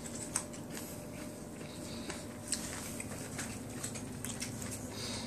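Someone eating lamb chops and roast corn by hand close to the microphone: scattered small wet clicks and smacks of chewing and handling the food, two louder ones about half a second and two and a half seconds in, over a steady low room hum.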